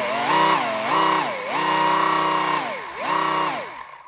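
A 3D-printed screw compressor driven by an electric motor, whining as it is revved up and down about five times in quick succession. It spins down and stops near the end.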